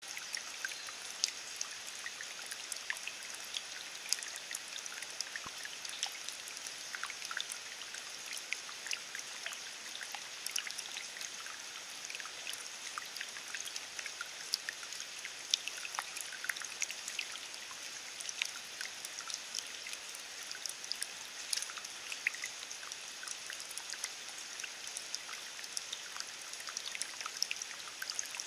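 Steady rain falling on wet grass and a puddle: an even hiss dotted throughout with many small, sharp drop taps.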